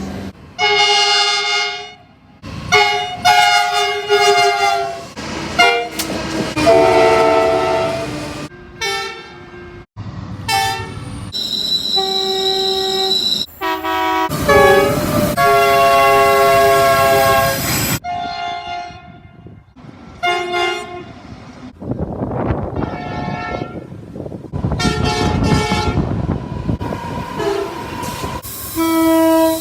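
Train horns sounding one after another, about a dozen short and long blasts of multi-tone chord horns from different trains, joined by abrupt cuts, over faint rail and engine noise.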